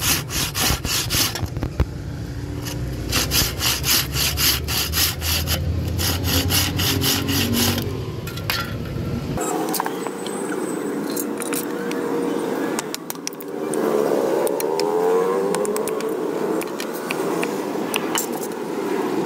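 Hand saw cutting through a small block of wood with quick back-and-forth rasping strokes in two runs. About halfway the sawing stops and a quieter mix of scraping and a few knocks follows.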